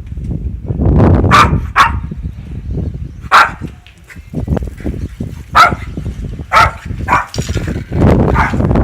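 A dog barking about seven times at irregular intervals, over a steady low rumble of wind on the microphone.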